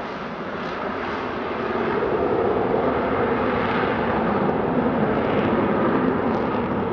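Jet engines of a formation of fighter jets flying past, a steady rushing noise that swells a little in the first couple of seconds.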